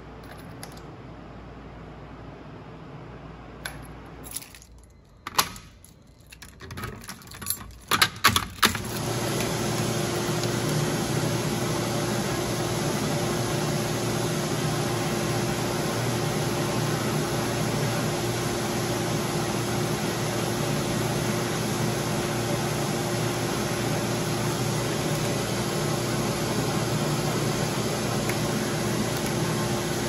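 Keys jangling and clicking as a key is worked in a wall-mounted fire alarm key switch, a burst of sharp clicks about four to nine seconds in. After that, a louder steady rushing noise with a low steady hum.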